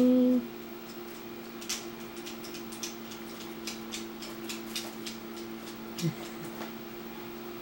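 A steady low electrical hum with scattered faint clicks in the middle stretch, and one brief low sound about six seconds in.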